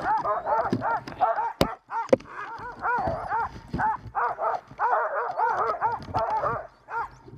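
Sled dogs yipping and whining in quick, short cries that rise and fall in pitch, several a second, with two brief pauses. Two sharp knocks come about a second and a half and two seconds in.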